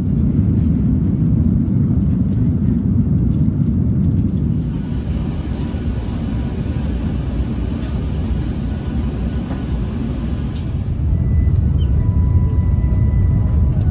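Airliner cabin noise inside an Airbus A350-941: a steady low rumble of engines and rushing air, with a band of hiss coming in for several seconds in the middle.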